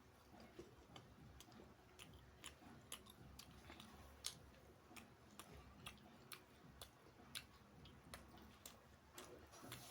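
Close-miked chewing of a mouthful of beef biryani: soft, irregular wet mouth clicks and smacks.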